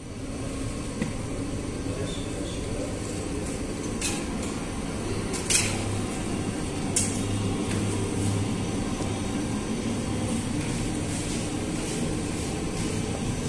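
Steady hum and rush of a bakery's bread oven and its machinery running, with a few short sharp knocks about four, five and a half, and seven seconds in.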